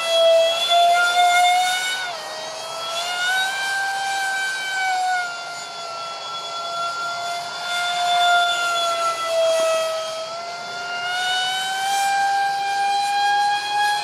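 The twin electric ducted fans of a Freewing Su-35 RC jet (5-blade rotors, 2600kv motors on 6S) give a loud screech with a stack of overtones. The pitch wavers with the throttle, dipping about two seconds in and again near the end before climbing. The fans have cheap shaft adapters and mounts shaken loose, which make the screech worse with vibration.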